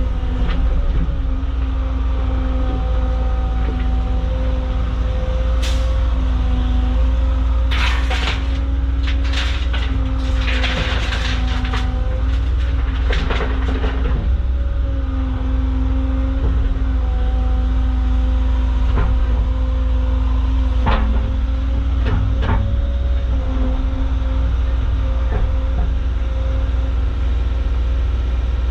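Compact Caterpillar excavator's diesel engine running steadily under load, with a hydraulic whine that shifts in pitch as the boom and bucket move. From about 8 to 14 seconds in, rocks clatter and scrape as the bucket digs and dumps, with a few single knocks later on.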